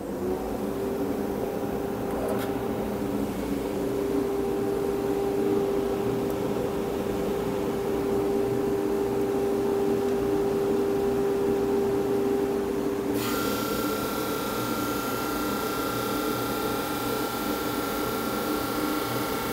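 Powermatic PM2244 drum sander running steadily, its drum motor just up to speed. About two-thirds of the way through, a second sound joins: a high steady whine with a hiss, as the conveyor feed belt carries a board in toward the drum.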